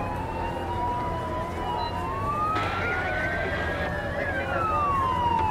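Several fire-truck wailing sirens overlapping, each slowly rising and falling in pitch, over a steady low rumble, with a brief hiss about halfway through.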